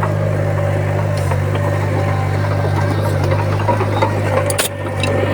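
Komatsu D51PX bulldozer's diesel engine running steadily, with a constant whine above its low drone. A short sharp knock comes about four and a half seconds in, as the engine sound briefly dips.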